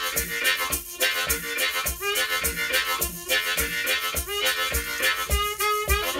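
Diatonic harmonica played as a rhythm groove: short chords repeated in a steady pattern, over a beat of low thumps and sharp clicks.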